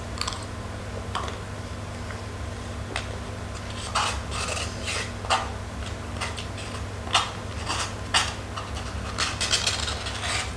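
Plastic spoon scraping and knocking inside a small paper food cup as the last of the food is scooped out: a run of short scrapes and clicks starting a few seconds in and coming thicker near the end.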